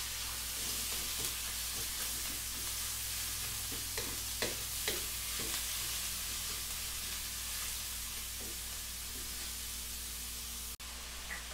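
Ground pork with onions and garlic sizzling in a hot wok while a wooden spatula stirs and scrapes it, with a few sharper scrapes about four to five seconds in. The sound cuts out for a moment near the end.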